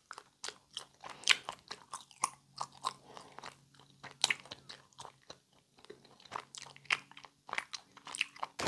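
A gummy candy being chewed close to a clip-on microphone: many short, irregular mouth clicks and smacks.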